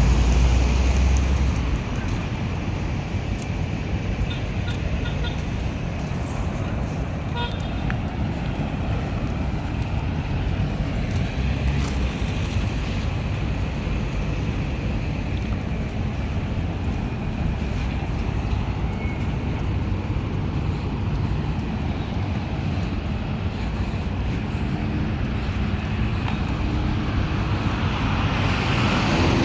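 Steady road traffic noise: a continuous low rumble of passing vehicles, a little louder in the first second or two.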